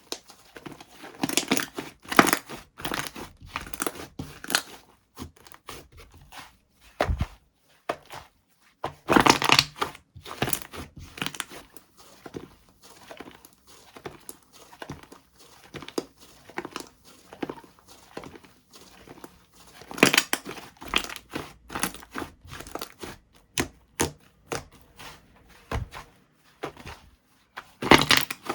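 Banana cream soufflé slime being squeezed, stretched and poked by hand, giving irregular crackling, crinkly pops, with louder clusters of pops a few times.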